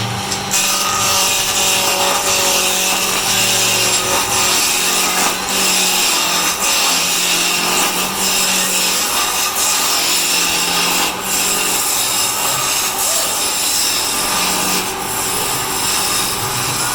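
Wood being cut on a spinning wood lathe: a steady scraping hiss of the tool on the turning wood over a low motor hum, breaking off briefly a few times as the tool lifts.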